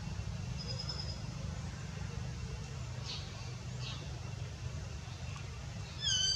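A steady low rumble with a few faint high chirps and brief falling squeaks. Near the end comes one loud, short high-pitched animal call.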